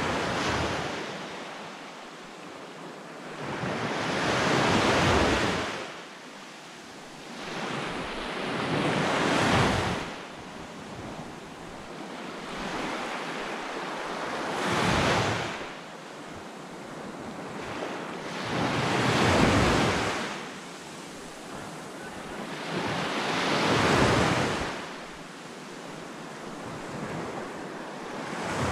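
Small sea waves breaking and washing up a sandy beach, each surge swelling and fading about every four to five seconds.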